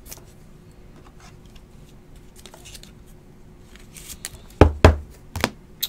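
Trading cards and clear plastic being handled close to the microphone: faint rustling, then a few sharp taps and clicks a little before the end, the loudest sounds here.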